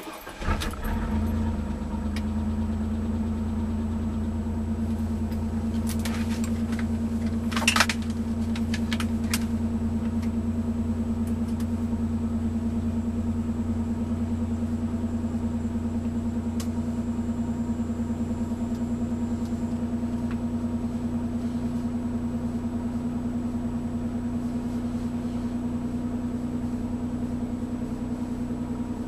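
1992 Mitsubishi Montero's 3.0 V6 catching right at the start and then idling steadily, with a tick at startup that the owner takes for lifter tick. A few sharp clicks come around eight seconds in.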